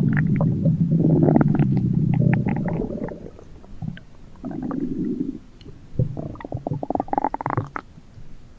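Cartoon stomach-growl sound effects: a long, low pitched growl for about three seconds, then a shorter rumble, then a quick run of short gurgling pulses near the end.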